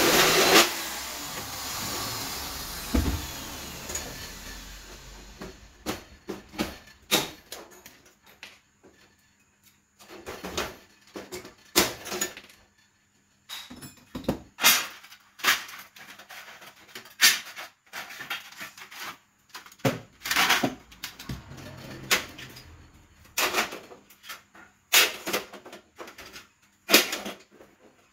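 A power drill stops right at the start, its sound fading over the next few seconds. Then come scattered sharp clicks and knocks of aluminium floor slats and profiles being handled and laid into an aluminium cabinet frame.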